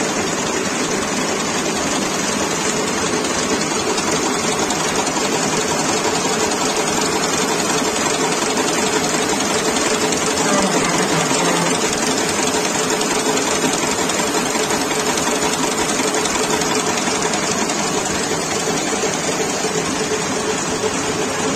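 Sisma automatic gold chain-making machine running at high speed, making a fast, even mechanical clatter with a steady hum.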